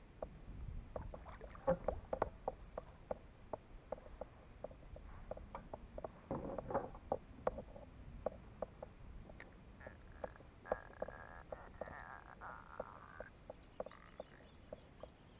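Fishing reel ticking as the line is wound in, a light regular click about three times a second, while a fish is played from a kayak. A brief steady high tone sounds for a few seconds about two-thirds of the way through.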